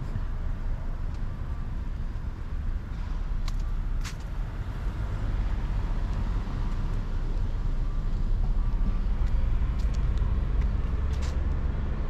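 Low rumble of a motor vehicle passing on the street, swelling about halfway through and easing off near the end, with a few faint sharp clicks.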